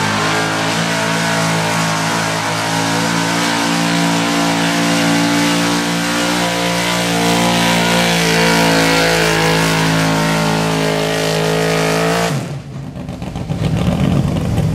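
Modified Ford pickup's big-block gas engine running at high, sustained revs under full load while it drags a weight-transfer sled, its pitch holding fairly steady with a slight wander. It cuts off abruptly about twelve seconds in, and a rougher noise with no clear pitch builds near the end.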